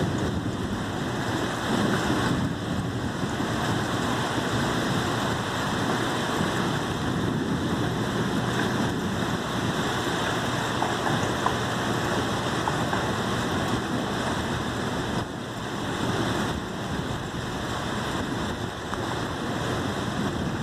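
Rain pouring steadily in a thunderstorm, an even hiss.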